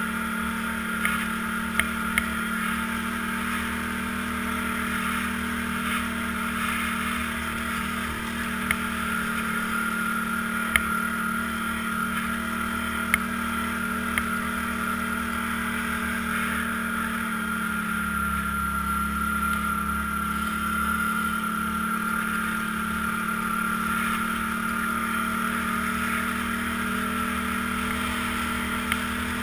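ATV engine running steadily as the quad rides along a snowy trail, a constant drone whose pitch dips slightly about two-thirds of the way through and recovers. A few short sharp clicks stand out over it.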